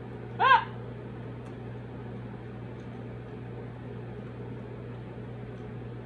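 A short, high vocal sound from the person eating, rising then falling in pitch, about half a second in, over a steady low hum and room noise.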